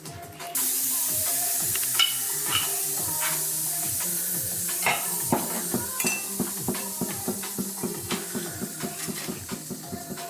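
Background music over a hiss that sets in suddenly just after the start and slowly fades. Light metallic clicks and taps run throughout, becoming a quick, even ticking in the second half.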